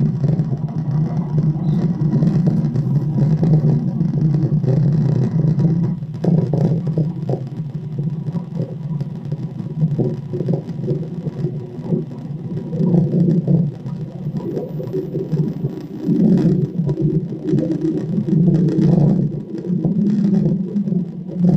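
Playback of an outdoor recording: a steady low rumble and hum from a passing airplane, swelling and dipping.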